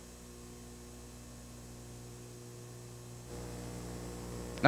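Steady electrical mains hum on the audio line, a low buzz with several fixed tones. It grows louder about three seconds in, and a single short click comes near the end.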